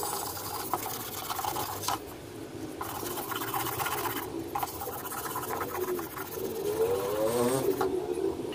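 Hand sanding a stained wooden board with 320-grit emery paper wrapped around a wooden block: quick back-and-forth rasping strokes in three long runs, with short pauses about two and four seconds in.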